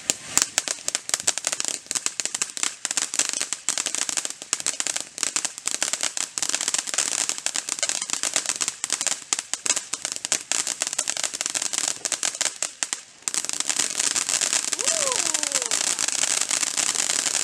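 Consumer fireworks going off with dense, rapid crackling and popping. There is a brief lull about 13 seconds in, then a continuous crackle.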